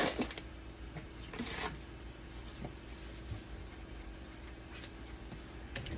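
Disposable exam gloves being pulled onto the hands: rustling and stretching, with two short louder bursts in the first two seconds and fainter handling after, over a steady faint hum.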